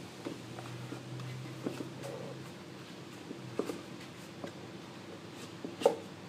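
Cardboard phone box and its lid being handled: scattered light taps and scuffs, with one sharper knock near the end.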